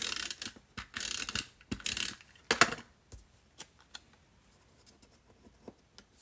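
Snail adhesive tape runner drawn across cardstock in about four short strokes, followed by a few faint clicks of paper being handled.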